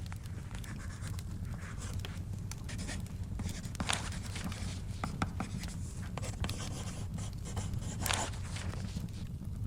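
Writing on paper: light scratchy strokes, with two louder papery swishes about four and eight seconds in, over a steady low rumble and scattered small crackling clicks from a fire.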